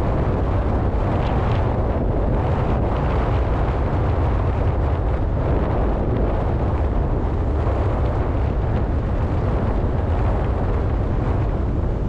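Strong sea wind buffeting the microphone with a steady, heavy low rumble, over the rushing wash of choppy waves against a rocky seawall.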